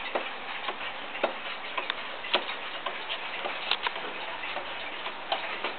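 Waterbury Clock Company weight-driven pendulum wall clock ticking steadily, a little under two ticks a second, some beats louder than others, over a steady hiss.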